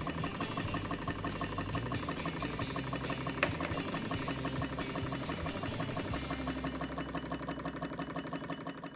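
Empire B-38 toy hot air (Stirling) engine running steadily on its new electric heater, its piston, crank and flywheel making a rapid, even mechanical clatter. A single sharp click comes about three and a half seconds in.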